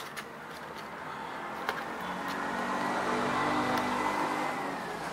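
A motor vehicle passing by, its engine sound swelling over a few seconds and easing off near the end with a slight drop in pitch. A few light clicks of plastic lure boxes being handled sit on top of it.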